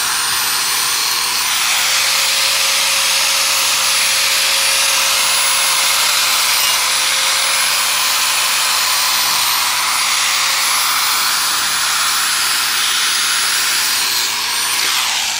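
Angle grinder with a masonry blade cutting into stabilized compressed earth block, running steadily with a high motor whine over grinding noise. About a second before the end the whine drops in pitch as the grinder winds down.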